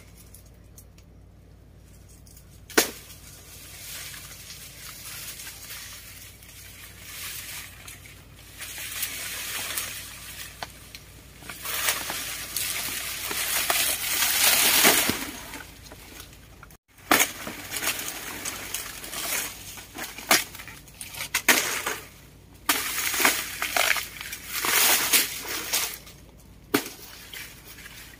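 Dry banana leaves rustling and crackling as a bunch of bananas is cut and pulled down from the plant. In the second half, a long run of short, sharp chops as a knife hacks into the banana stalk.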